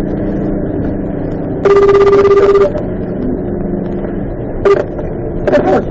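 Telephone ringback tone heard over a radio call-in broadcast: one pulsed, steady ring lasting about a second, under a steady low hum of engine and road noise. A further ring starts near the end and is cut short, followed by clicks, as the call seems to be answered.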